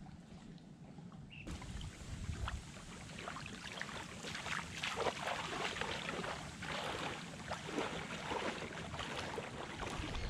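Water splashing and sloshing around a person's legs as they wade through shallow water, in irregular splashes that grow busier a few seconds in, with wind rumbling on the microphone.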